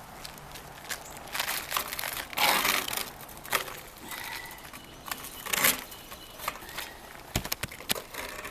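Roofing materials being handled on a roof: rustling and scraping of shingles or roofing paper, with scattered light knocks and taps. Two louder stretches of scraping come about two and a half seconds in and again past five seconds.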